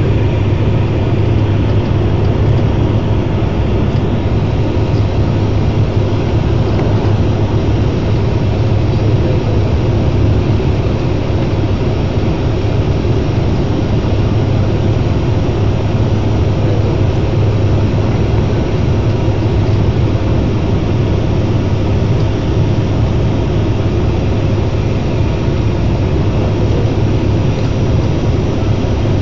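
Cabin noise of a Fokker turboprop airliner on final approach: the engines and propellers drone steadily with a strong low hum, unchanging throughout.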